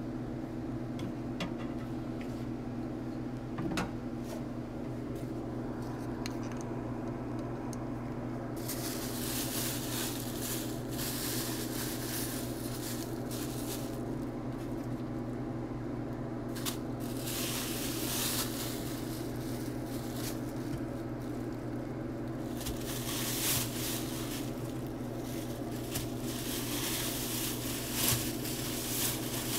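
Thin plastic grocery bag crinkling and rustling in repeated bursts from about a third of the way in, as seasoned tilapia fillets are tossed in cornmeal breading inside it. A few light clicks come first, and a steady low hum runs underneath throughout.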